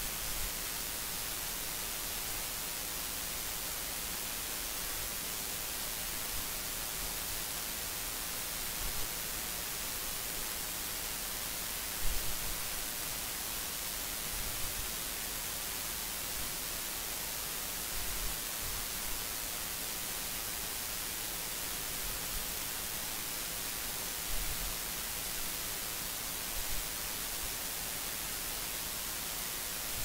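Steady electronic hiss of a recording's noise floor, strongest in the high frequencies, with a few soft low thumps; the loudest thump comes about twelve seconds in.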